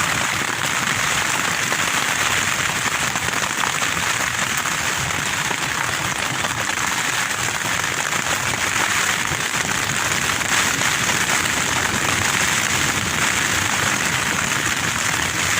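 Tent fabric battered by strong wind gusts: a steady, dense rushing patter on the tent walls.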